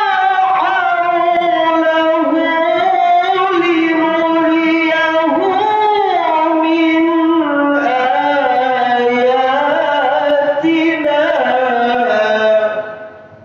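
A man's solo voice reciting the Quran in the melodic tilawah style, holding one long, high, ornamented phrase that winds up and down in pitch. It fades away near the end.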